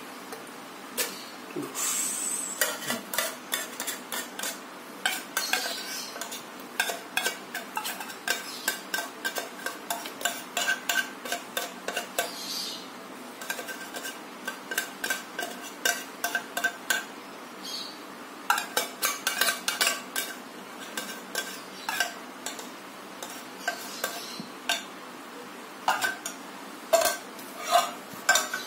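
Metal food tin being tapped and knocked against the rim of a plastic blender jar to shake its contents out: runs of quick taps with a ringing metallic note, broken by short pauses, the last few taps near the end the loudest.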